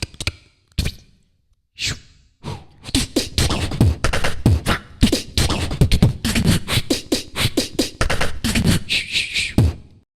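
Beatboxing: a person imitating drums with their mouth. A few separate hits come first, then from about two and a half seconds in a fast, continuous beat of clicks and low kick-like pulses that stops just before the end.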